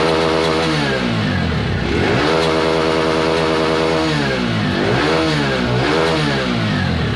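TVS Radeon BS6 motorcycle's single-cylinder fuel-injected engine being revved: it drops from high revs, is revved up and held for about two seconds, then blipped a few times near the end. It starts and revs cleanly, with the engine check light out, now that a cut wire at the ECU has been repaired.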